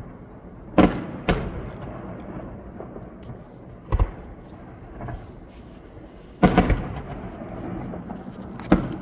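Aerial firework shells bursting overhead: a string of sharp booms, two close together about a second in, then one every two to three seconds, with a quick cluster of several bangs about two-thirds of the way through.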